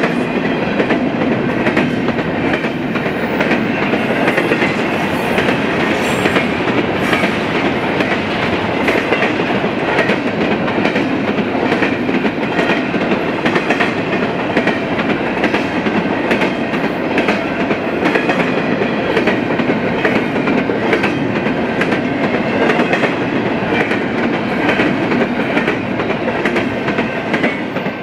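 A double-stack intermodal freight train's container well cars rolling past with a steady rumble, wheels clicking over the rail joints. The sound starts to fade at the very end as the last car goes by.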